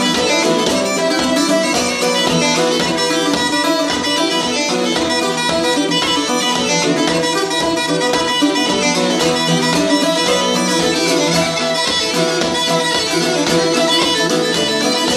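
Uilleann pipes playing an Irish reel tune over their steady drones, with a bouzouki strummed in a driving rhythm underneath.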